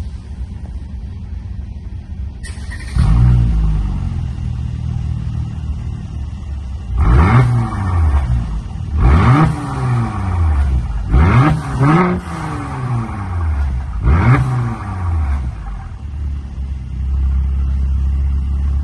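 Mercedes-AMG E43's twin-turbo V6 through an Fi Exhaust valvetronic catback: idling, then revved in about six short blips that rise and fall back to idle, with a steady, louder idle near the end.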